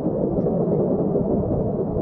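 Steady, muffled rush of seawater in a shallow rock pool, dull and low with little treble, as heard with the microphone at or under the water's surface.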